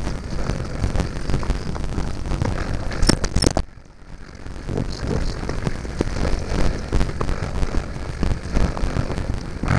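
Mountain bike riding noise on a GoPro Hero5 Black's built-in microphone: tyres crunching over rock and gravel, the bike rattling and knocking, and wind rumble. About three and a half seconds in, after a couple of sharp knocks, the sound cuts out almost completely for about a second and then comes back.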